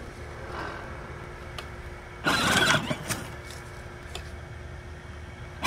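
Electric motor and gearbox of a Peg Perego John Deere ride-on toy tractor running with a steady low hum. About two seconds in there is a louder burst of sound lasting under a second.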